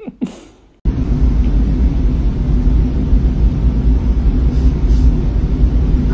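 A loud, steady low rumble that starts abruptly about a second in and runs on evenly.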